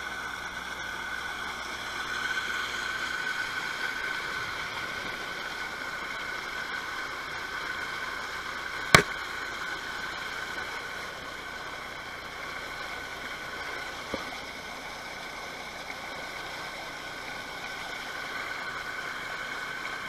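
Steady rush of flowing river water, with a single sharp click about nine seconds in.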